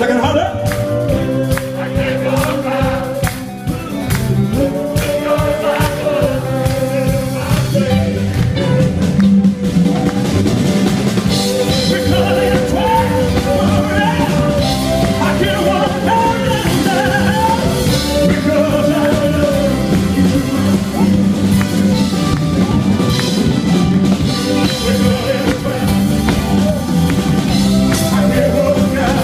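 Live rock band playing: a male lead singer sings over drum kit and electric guitars.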